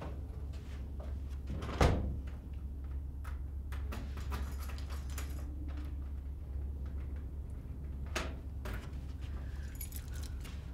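Keys jangling and a door lock and handle being worked: small metallic clicks and rattles, with one loud clunk about two seconds in and a few more clicks near the end, over a steady low hum.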